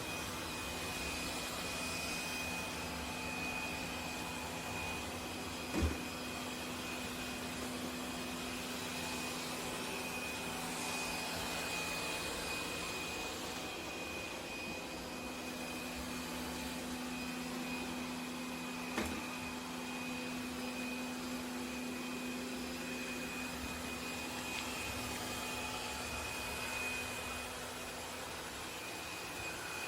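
Laresar L6 Nex robot vacuum running: a steady motor hum and hiss with a low drone and a thin high whine. Two brief knocks, about six seconds in and again about two-thirds of the way through.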